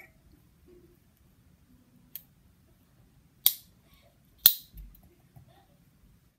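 Metal spoon clinking against a glass jar while powders are stirred: one faint tap, then two sharp clinks about a second apart.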